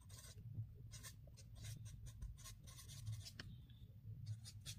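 Felt-tip marker writing on paper: a quick run of short, faint scratching strokes.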